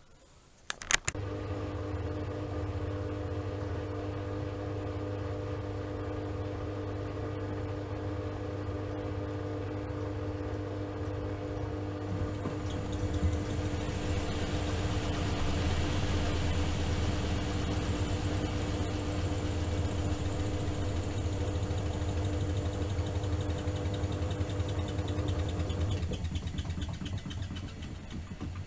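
Miele Softtronic W3923 washing machine running: a couple of sharp clicks about a second in, then a steady motor hum with two held tones. A hiss swells in about halfway and the sound grows louder. The hum cuts out near the end and the sound fades.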